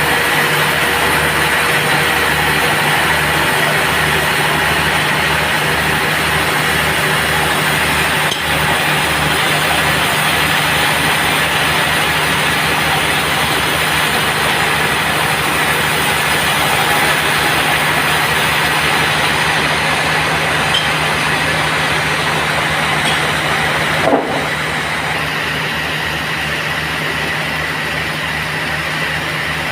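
Sawmill bandsaw machinery running steadily, an engine-like low pulse under a continuous mechanical noise, with one sharp knock about 24 seconds in.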